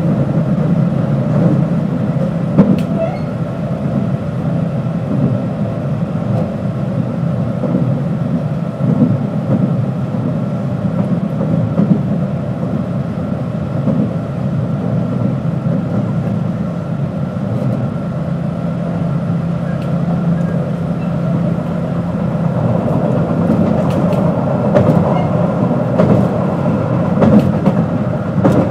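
JR West 221 series electric multiple unit running at speed: a steady rumble of wheels and running gear with a faint steady tone from the motors and gears, and a few sharp clicks along the way.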